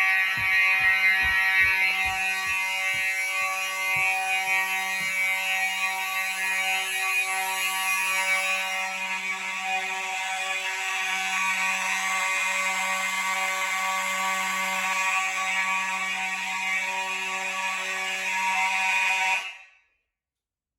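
Fire alarm horns, including a Faraday 6226-W horn strobe and a mechanical horn, sounding together in continuous (non-pulsing) mode after a pull station has been activated, with a few low knocks in the first few seconds. About nineteen and a half seconds in, the horns cut off suddenly as the alarm is silenced.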